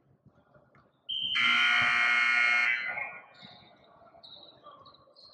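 Basketball scoreboard buzzer sounding once, loud and harsh, for about a second and a half, starting about a second in and cutting off.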